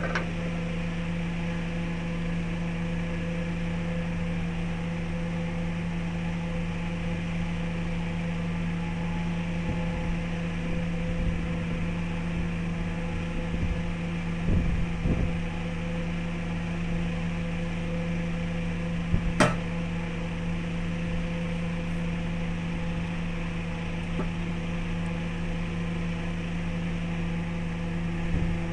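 Wood lathe motor running at a steady speed with an even hum. A few soft thuds come about halfway through, then one sharp click.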